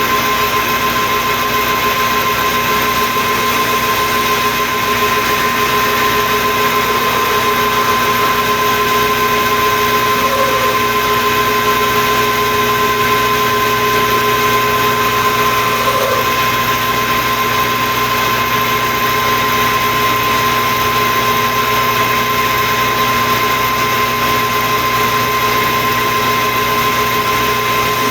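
Metal lathe running steadily with a constant gear whine and hum as it turns a steel shaft.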